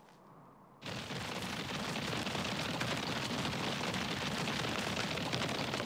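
Cartoon sound effect of a stampede of running feet: a dense, rapid rattling rumble that starts abruptly about a second in and holds steady.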